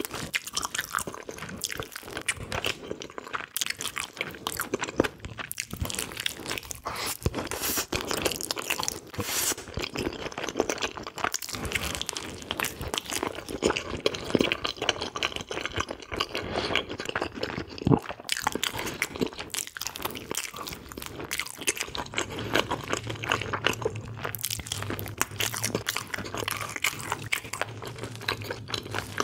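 Close-miked eating: a person chewing and crunching spicy braised pig's feet, with dense irregular wet clicks and smacks of the mouth.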